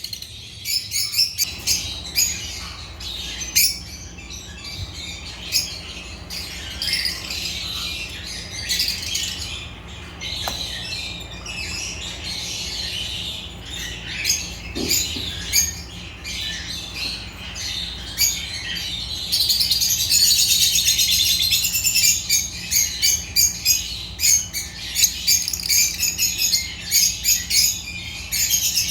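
Lovebirds (Agapornis) chirping and squawking in a busy, continuous chatter of sharp high-pitched calls, which grows louder and denser about two-thirds of the way through.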